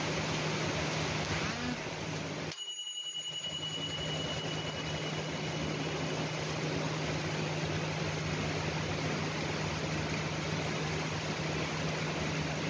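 Heavy rain falling steadily, a dense even hiss with a low steady hum underneath; the sound cuts out abruptly for a moment about two and a half seconds in, then resumes.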